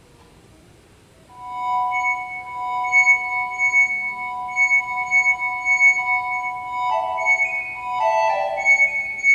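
Electronic tones from a wind controller driving a Yamaha WT11 tone generator. After about a second of quiet, a sustained chord of steady high tones comes in, pulsing in level. Near the end it breaks into a cluster of shifting pitches that dip downward.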